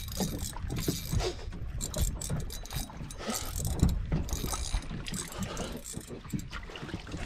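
Spinning reel being cranked, its gears and pawl giving a rapid clicking whir as a hooked yellowtail snapper is reeled in against a bent rod. Wind rumbles on the microphone underneath.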